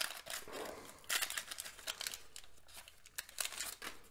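Waxed-paper wrapper of a 1989 Donruss baseball card pack crinkling and tearing as it is peeled open by hand, with the stiff cardboard cards rustling. It comes as a run of uneven crackles, loudest about a second in and again after three seconds.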